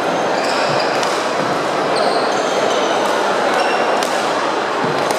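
Busy badminton hall during play: a steady hubbub of voices, with short high squeaks of shoes on the wooden court and a few sharp racket hits on the shuttlecock.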